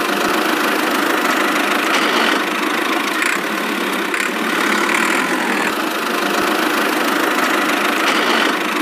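Tractor engine running at a steady idle, the engine sound of a toy tractor, thin and without a low rumble.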